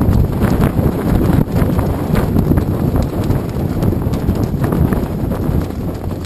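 Wind buffeting the microphone of a GoPro Hero 2 mounted outdoors: a loud, rough rumble with irregular knocks scattered throughout.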